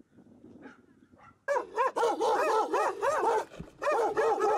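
A pack of shelter dogs barking together in rapid, overlapping barks that start suddenly about a second and a half in.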